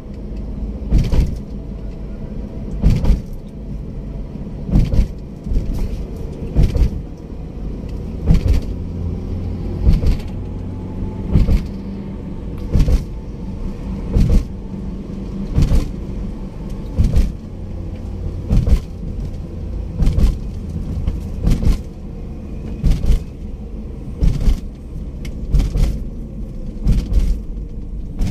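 Car cabin road noise while driving on a toll road: a steady low rumble of engine and tyres, with a short sharp thump about every one and a half to two seconds.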